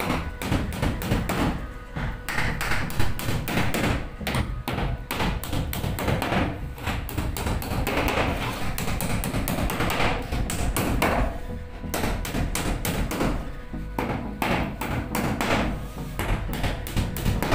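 Background music over a claw hammer tapping nails into plywood wall panels, blow after blow.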